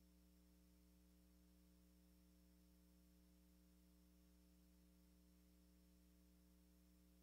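Near silence: only a faint, steady electrical hum with light hiss.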